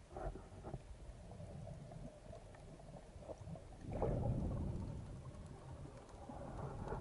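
Underwater ambience picked up by a diver's camera: a low rumble of moving water with scattered small clicks, louder for a second or two about four seconds in.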